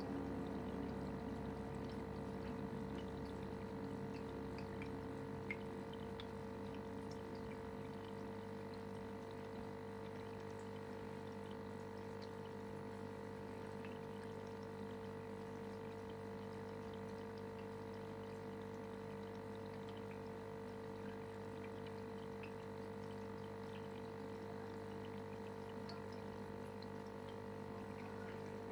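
Aquarium filter pump humming steadily, with water trickling and faint ticks of bubbles or drips.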